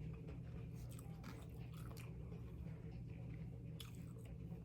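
A person chewing food close to the microphone: faint, scattered wet mouth clicks and smacks over a steady low hum.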